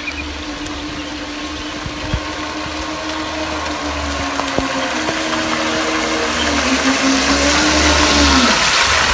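Motor of a radio-controlled fishing bait boat whining steadily as the boat speeds across the water, growing louder as it approaches, with the hiss and splash of its wake rising alongside. The whine drops in pitch a little past eight seconds in, as the boat slows.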